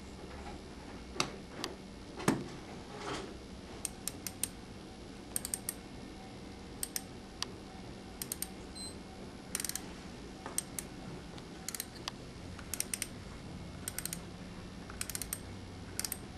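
MIS dental torque wrench ratcheting an abutment screw into an implant: small clusters of two or three sharp metallic ratchet clicks, repeating roughly every second. A few louder knocks come in the first few seconds before the clicking settles in.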